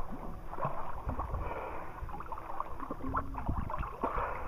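Seawater sloshing and gurgling against a waterproof camera held at the surface, with uneven low thumps as small waves and wind hit the microphone.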